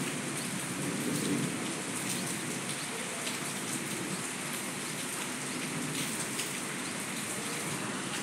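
Light rain falling steadily on flat rooftops: an even hiss with scattered drip ticks.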